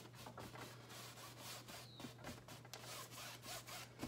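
A paintbrush scrubbing lightly over a stretched canvas in quick, short strokes in every direction, a faint rubbing swish with each stroke. A low steady hum runs underneath.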